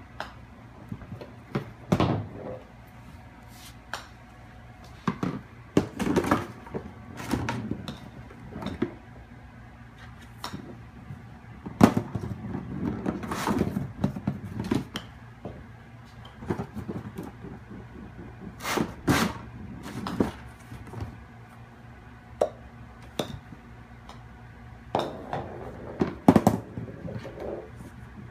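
Irregular knocks, taps and rattles of a golf ball and a kitten's paws against the hard plastic cups and ball-return end of an indoor putting green, the loudest knocks about 2, 12, 19 and 26 seconds in.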